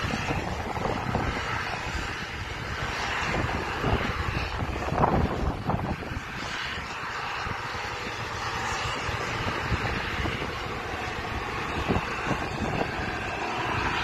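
Steady engine and driving noise of a vehicle moving across a harvested field, with a low rumble and a few irregular knocks and rattles.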